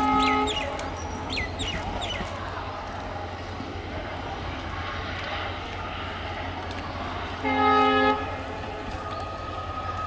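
Departing passenger train's locomotive horn: a short blast right at the start and a louder one of about half a second near the end, over the steady low rumble of the receding train.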